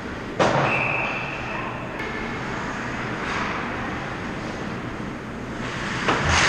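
Ice hockey rink ambience: skates scraping on the ice, with a sudden harsh scrape about half a second in and another swell of scraping near the end. A steady whistle tone, a referee's whistle, sounds for over a second after the first scrape.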